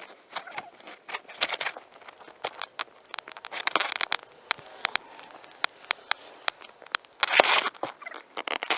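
Hands and a tool working through garden soil to dig out sweet potatoes: irregular crackling, clicking and scraping of dirt and roots, with a louder rustling scrape about seven seconds in.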